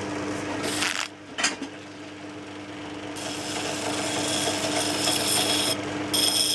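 Pillar drill running a sanding drum on a flexible cable drive, with a steady hum and a few knocks in the first second and a half. From about three seconds in, a rasping, whining hiss builds as the drum sands the steel spoon gouge, breaking off briefly near the end.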